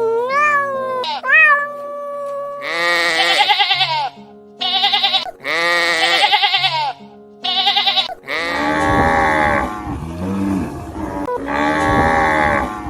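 Farm animal bleating: a run of four loud, quavering bleats, then two longer, lower bleats, over background music. Rising and falling meow-like cries come first, in the opening two seconds or so.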